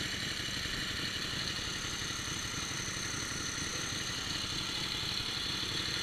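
Antique motorcycle engine idling steadily, its firing a rapid, even low pulsing.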